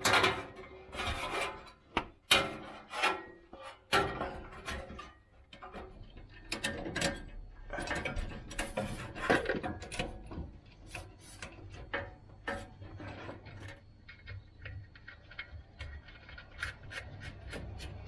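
Socket ratchet clicking in quick runs as the new shift cable is bolted to its bracket at the transmission, mixed with metal scraping and knocks from the tools and parts. The clicking is densest in the second half.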